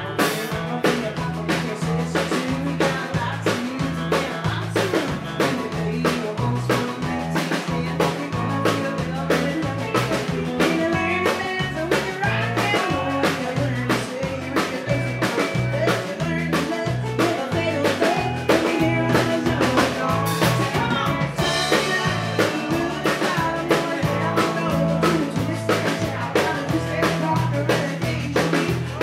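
A live country band playing an upbeat song: fiddle, acoustic and electric guitars and a drum kit keeping a steady beat.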